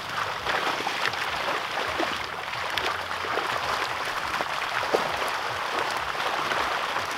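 Tambaqui crowded in a closing seine net, thrashing at the surface: continuous splashing made of many small sharp splashes, with one sharper slap about five seconds in.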